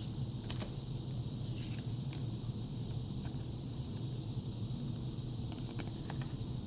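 Steady low hum of room noise, with a few faint light clicks and rustles of trading cards being slid into rigid plastic toploaders.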